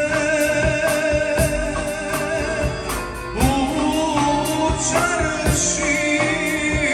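Live band playing a folk song: accordion, acoustic guitar, electric guitar and drum kit, with a man singing held, wavering notes over a steady drum beat.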